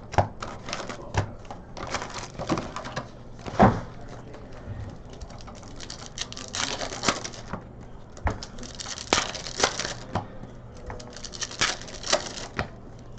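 Trading cards and packs being handled: a run of irregular light clicks and short sliding rustles as cards are flipped through and set down.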